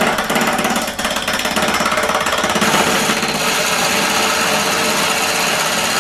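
Turning chisel cutting the edge of a spinning wooden disc on a small home-built wood lathe. A loud, rough scraping with a rapid rattling chatter, steady throughout, as the edge is rounded off.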